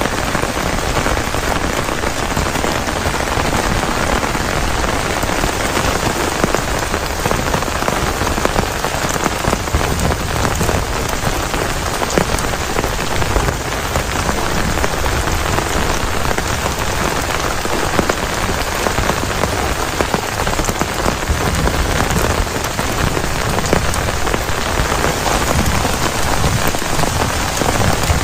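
Heavy rain falling steadily, with no let-up.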